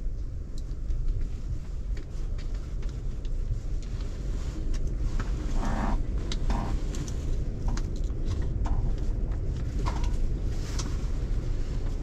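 Steady low rumble of a Fendt 930 Vario tractor idling, with scattered small clicks and taps of a hand tool and plastic trim on the joystick.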